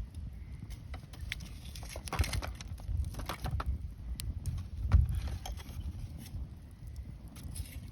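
Wood fire crackling: irregular sharp pops and snaps over a steady low rumble, with the loudest pop about five seconds in.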